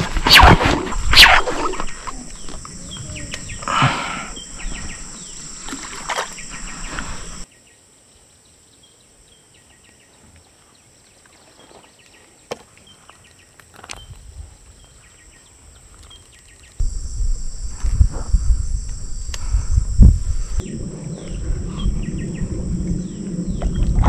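Rod handling and wind rumble on a body-worn camera's microphone while a hooked fish is played on a pole rod from the bank, with sharp knocks near the start. A steady high-pitched drone runs underneath, and a quieter middle stretch holds faint chirps.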